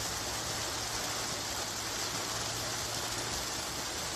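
Heavy rain on a moving car and its tyres hissing on the soaked road, an even, steady hiss heard from inside the car, with a low engine hum underneath.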